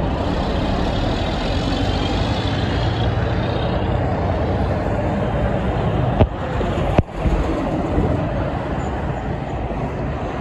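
Tractor-trailers passing close by on a multi-lane road: diesel engines and tyre noise in a steady traffic roar. Two sharp clicks a little after the middle.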